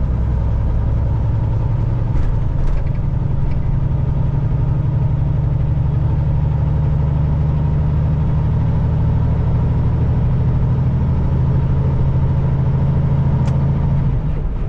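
Semi truck's diesel engine and road noise droning steadily inside the cab while cruising at highway speed, with a couple of faint clicks.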